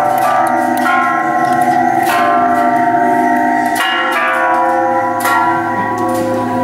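Bell-like chimes ringing, a new note struck every second or so, each tone ringing on and overlapping the next.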